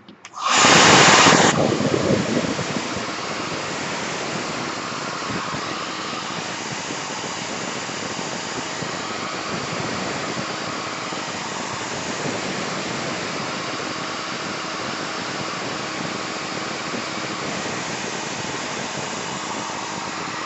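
Handheld craft heat tool blowing hot air to dry wet paint on a paper bookmark. It starts with a louder rush about half a second in, then runs as a steady blowing hiss.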